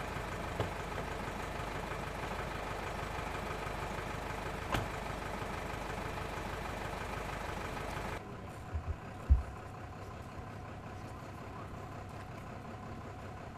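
Fire engine idling steadily. About eight seconds in it gives way to a quieter hum, broken by a few sharp low thumps.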